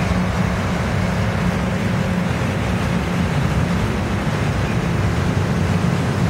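Train running by, a steady low rumble with a deep engine hum underneath.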